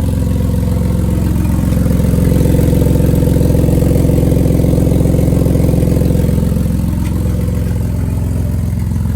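Jeep Liberty engine idling with a steady, rapid exhaust pulse. An exhaust leak is present on the car.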